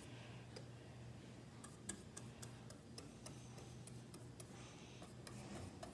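Quiet, irregular ticks of a paintbrush dabbing paint onto a small canvas board, over a low steady hum.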